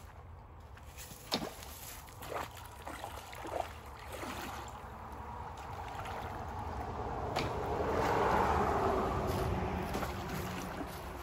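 Shallow creek water splashed by a thrown pole spear and wading legs: a few short, sharp splashes in the first few seconds, then steady sloshing that swells about two-thirds of the way through and eases off near the end.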